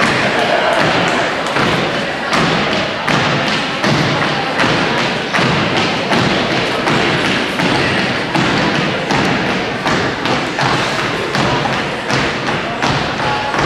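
Dance team stomping in unison on a wooden gym floor: a steady beat of heavy thumps about every three-quarters of a second, over a constant background din.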